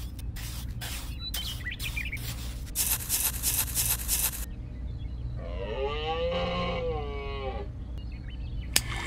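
Sand being scraped over seed rows: several short scraping strokes, then a longer, louder one about three seconds in. Then a drawn-out moo-like call, about two seconds long, that rises and falls, over a low steady hum.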